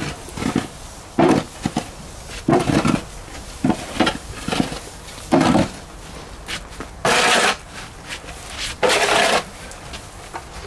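Goats bleating over and over, one short call after another, several of them coarse and noisy.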